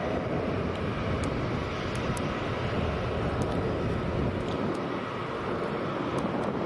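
Jet airliner engine noise from a passing aircraft: a steady, even rushing sound with no clear pitch.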